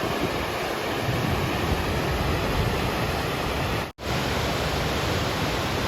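Laurel Fork Falls, a waterfall swollen by the previous night's rain, giving a steady loud rush of falling water. The sound cuts out for an instant about four seconds in.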